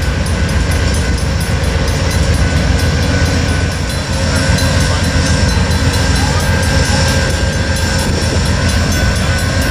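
Amtrak GE P42DC diesel locomotive standing with its engine running steadily, a heavy low rumble with a few steady whining tones above it.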